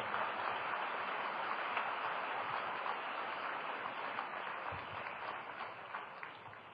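Audience applause: many people clapping steadily, fading away over the last couple of seconds.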